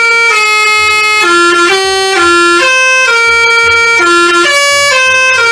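Telolet bus horn playing a tune: loud, reedy held notes that step up and down in pitch every half second or so.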